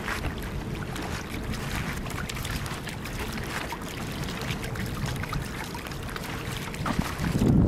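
Light, irregular splashing of a Pembroke Welsh corgi's paws as it wades through shallow water, over a steady low rumble of wind on the microphone; the rumble swells near the end.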